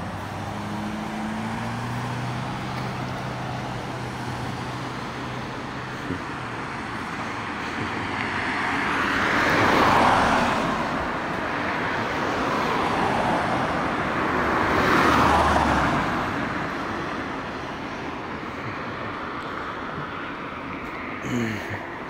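Road traffic: a steady hum of traffic, with two cars passing by that swell to a peak about ten seconds in and again about fifteen seconds in.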